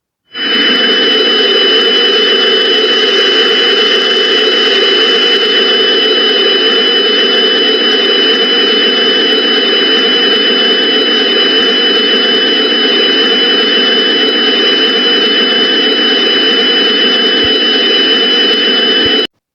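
Loud, steady rushing drone with two high, steady whistling tones over it: an Emergency Alert System (EAS) style background sound. It starts abruptly and cuts off suddenly near the end.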